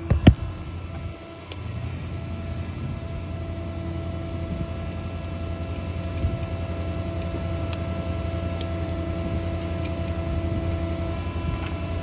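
A 6.7 Power Stroke diesel engine running steadily with a hum, slowly growing louder, with a sharp knock just after the start.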